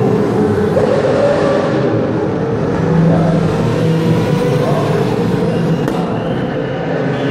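Formula Renault 3.5 single-seaters' Zytek V8 engines running as the cars drive one after another down the pit lane, a fairly steady engine note that shifts a little in pitch.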